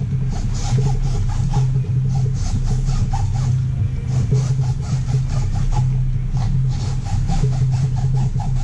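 Hacksaw cutting through the steel canister of an oil filter in steady back-and-forth strokes, about two to three a second. A strong steady low hum runs underneath.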